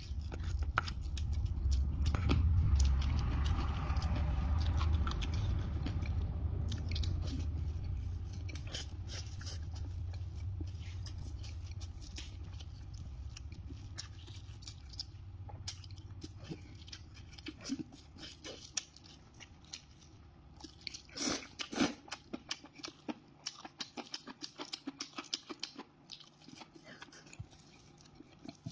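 A person chewing and crunching food close to the microphone, with many short crackling bites and mouth clicks. A low rumble sits under the first ten seconds or so and then fades.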